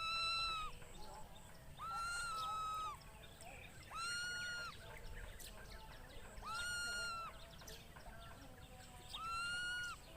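An animal giving a steady, bleat-like call five times, each about a second long and held on one pitch, with fainter lower calls between.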